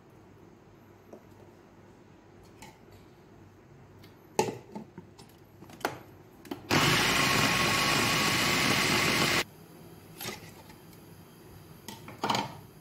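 Electric countertop blender running for about three seconds, starting and cutting off abruptly, a few seconds in. Before and after it come a few sharp knocks and clicks from the jug and lid being handled.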